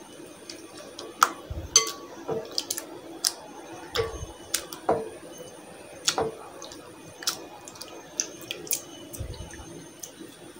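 Hand rinsing grated potato in water in a glass bowl: wet squishing and sloshing with irregular sharp clicks and splashes, about one or two a second.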